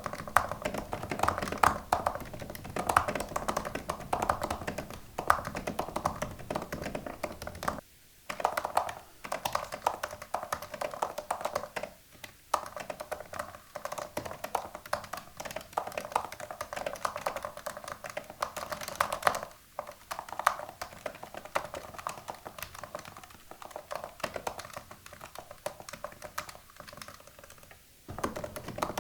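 Fast, continuous typing on a computer keyboard: rapid clicking keystrokes in runs, with a few short pauses between bursts.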